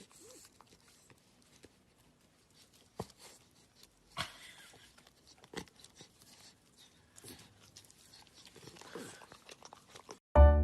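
A dog chewing food, with scattered short crunches and clicks. Loud background music with piano-like notes starts just before the end.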